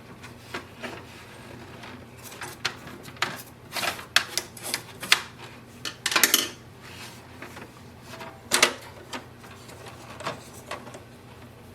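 Irregular clicks, knocks and rubbing from handling and wiping the paper roller inside an HP DeskJet 4100 printer during cleaning.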